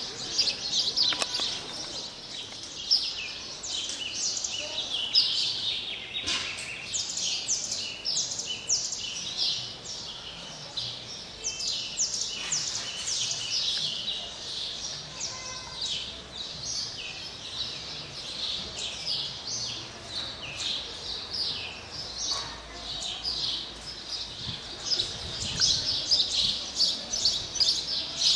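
A dense chorus of many small birds chirping, short high chirps overlapping without a break, growing a little louder near the end.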